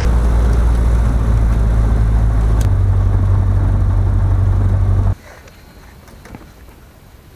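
Light single-engine airplane's piston engine and propeller running at low power, heard from inside the cabin as a loud, steady low drone. Its pitch steps down about two and a half seconds in, and the sound cuts off suddenly about five seconds in, leaving quiet outdoor background.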